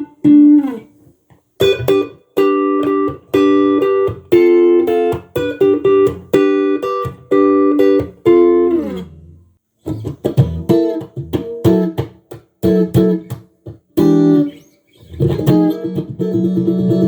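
Tomson Spirit Sounds Stratocaster-style electric guitar played: a run of repeated chords that ends in a downward slide, a short break, then picked notes and a strummed chord ringing on near the end.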